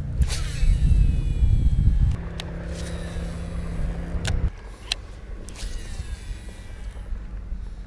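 Boat's outboard motor running steadily, with heavy wind rumble on the microphone in the first two seconds; the hum drops off about four and a half seconds in. A few sharp clicks are heard over it.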